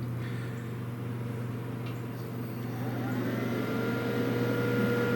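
Panasonic inverter microwave oven running: a steady hum, then about three seconds in a whine that rises in pitch and levels off as the oven starts heating and its power draw climbs to about 750 watts.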